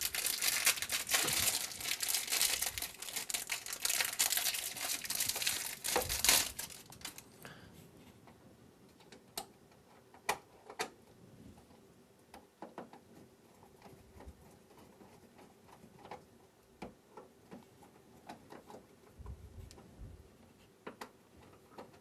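Plastic packaging crinkling as a new wall switch plate is unwrapped, dense for about the first six seconds. Then scattered light clicks and taps as the plastic plate is set on the switch and screwed down with a screwdriver.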